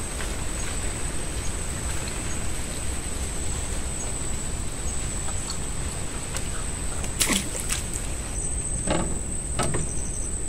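Steady noisy hiss with a continuous high thin whine, and a few sharp knocks about seven to nine and a half seconds in from fishing gear being handled in a wooden boat.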